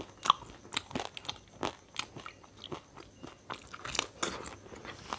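Crisp fried fuchka (panipuri) shells crunching as they are bitten and chewed, with irregular sharp crackles several times a second.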